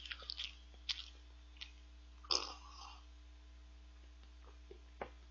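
Quiet mouth sounds of a person eating soft cheesecake: small clicks and smacks, with one louder, rougher noise a little over two seconds in.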